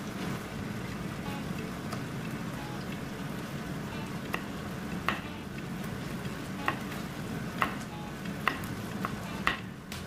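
Kitchen knife slicing a red chilli on an end-grain wooden cutting board: from about halfway through, the blade taps the board roughly once a second with a sharp click. A steady hiss and hum run underneath.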